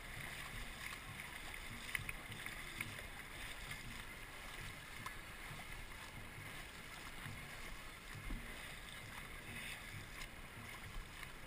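A dragon boat under way, paddles dipping and splashing and water rushing along the hull.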